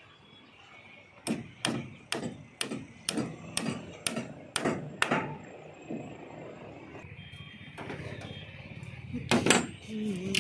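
Hammer knocking on lintel formwork: about ten sharp blows at roughly two a second, then a pause and a louder double knock near the end as a steel shuttering plate is moved.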